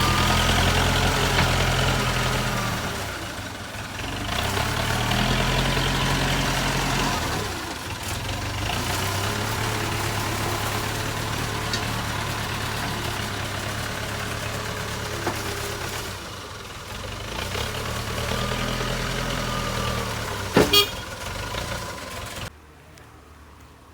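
JCB 3CX backhoe loader's diesel engine working, its pitch rising and falling repeatedly as the hydraulics are loaded. Two sharp bangs come near the end, and the sound then drops away abruptly.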